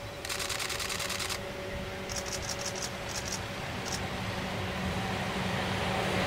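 An ED75 electric locomotive drawing near with its train, a steady hum and rumble growing louder toward the end. About a quarter-second in there is a second-long burst of rapid high clicking, and a few shorter bursts follow a couple of seconds later.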